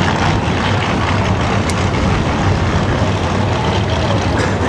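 Drag-race car engines idling at the starting line, a loud, steady low running.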